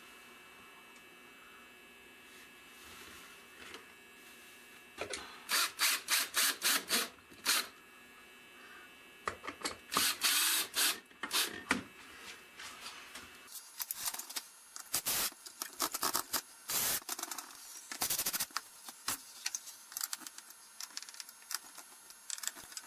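Power drill driving screws in short trigger bursts, several quick bursts in a row, a pause, then more, starting about five seconds in.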